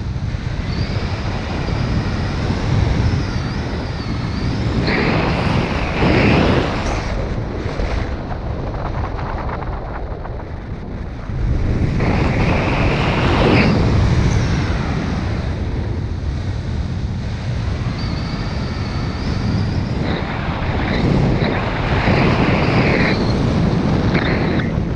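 Wind buffeting the microphone, a rushing noise that swells in gusts several times, with a faint wavering high whine underneath.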